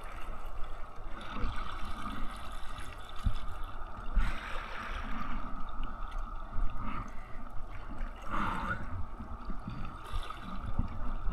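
Seawater lapping and gurgling against a kayak hull, with louder splashes about four and eight seconds in.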